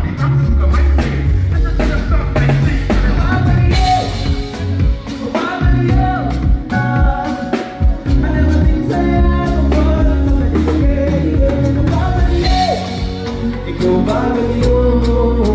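Band playing with a voice singing over drum kit and a heavy bass line, as in a rehearsal sound check.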